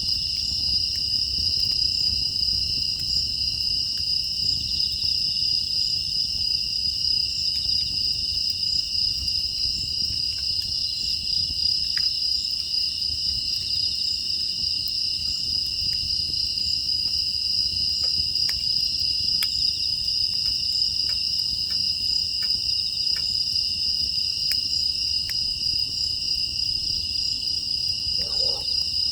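Steady, high-pitched chorus of crickets and other grass insects, with scattered sharp pops and crackles of a wood fire over a low rumble. A short, lower call comes in near the end.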